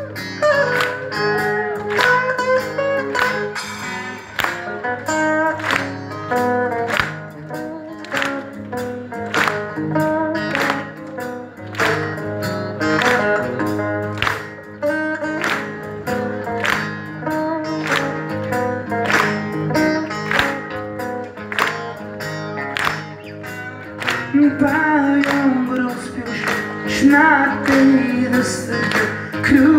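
Amplified acoustic guitar played live through a concert PA, strummed in a steady rhythm of about two strokes a second with picked melody notes over it. About 24 seconds in, a harmonica joins with a wavering melody.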